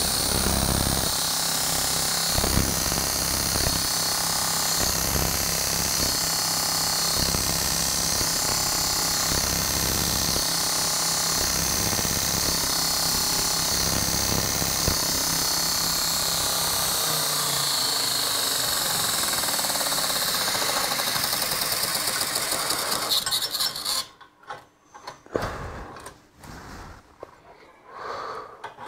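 Belt grinder running while a drill bit held in a fixed-angle jig is ground against the abrasive belt over the contact wheel, a steady grinding noise. The machine cuts off suddenly about 24 seconds in, leaving faint knocks of the jig being handled.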